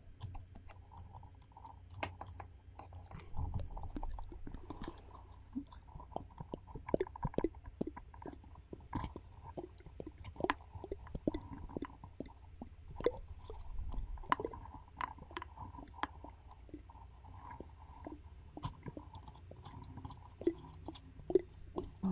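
Close-miked ASMR mouth sounds: irregular soft wet clicks and smacks, over a faint steady low hum.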